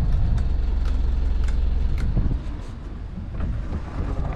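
Sailing yacht's inboard engine running with a steady low rumble that drops away about two seconds in, with a few light knocks and clicks on deck.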